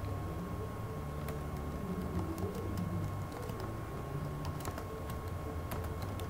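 Computer keyboard keys clicking in scattered, irregular strokes, more often in the second half, over a steady low electrical hum and a thin steady high whine.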